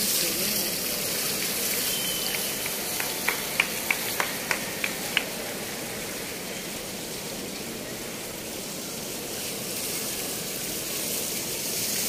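Fountain water jets spraying and falling back into the pool, a steady rushing hiss that slowly fades over the first half. A quick run of about seven sharp clicks comes about four seconds in.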